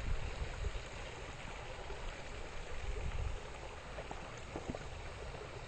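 Outdoor rushing noise with an uneven low rumble, wind buffeting the camcorder microphone, with a few faint clicks about four seconds in.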